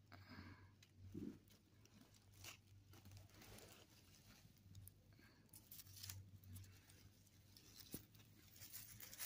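Near silence: faint rustling and scattered soft clicks from a hand rubbing a cat's head and fur right by the phone's microphone, over a low steady hum.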